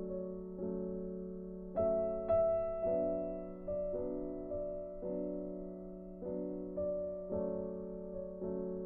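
Background music: slow, gentle piano playing soft chords, each struck and left to fade.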